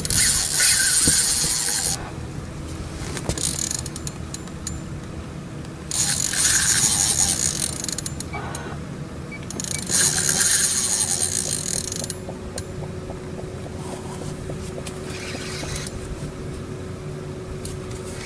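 Spinning reel's drag buzzing out in three bursts of about two seconds each as a hooked wels catfish takes line, with quieter mechanical reel noise between the bursts.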